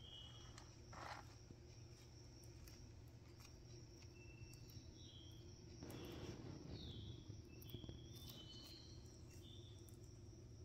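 Hermann's tortoise biting and tearing romaine lettuce: faint crisp clicks and a few small squeaks, with a louder rustling crunch about six seconds in, over a steady low hum.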